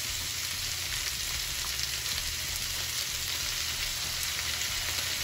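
Green pepper, onion and ginger sizzling in oil in a wok as they are stir-fried, with small crackles, while dark soy sauce is spooned in and stirred through.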